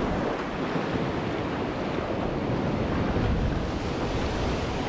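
Ocean swell and surf washing steadily, with wind rumbling on the microphone.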